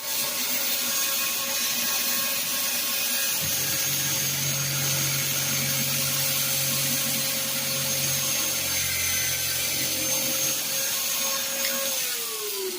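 Electric woodworking power tool motor running at a steady high whine, with a deeper hum added for most of the middle. Near the end it is switched off and winds down, its pitch falling away.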